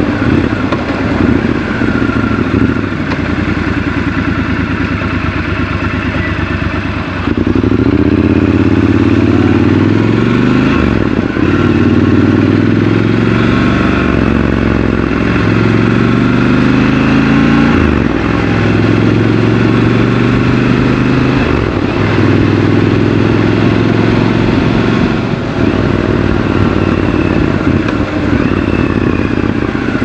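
Triumph Scrambler 1200 XC's 1200 cc parallel-twin engine heard from the rider's seat. About seven seconds in the throttle opens and it pulls hard through several upshifts, the pitch climbing and dropping back at each change, then settles to a steadier run near the end.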